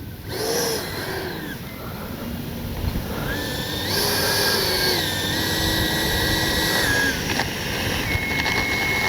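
Electric ducted fan of a Freewing BAE Hawk T1 70 mm RC jet whining, its pitch stepping up and down several times with changes of throttle.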